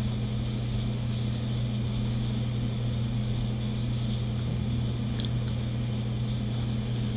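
Steady electrical hum with a faint high-pitched whine above it, unchanging throughout, and a faint tick about five seconds in.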